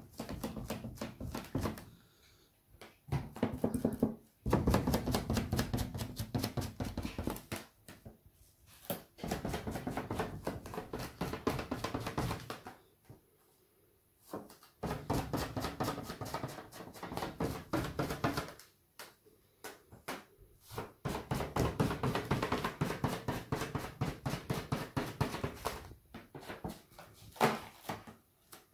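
An air-filled balloon coated in paint being dabbed quickly and repeatedly onto a canvas, making runs of rapid taps several seconds long separated by short pauses.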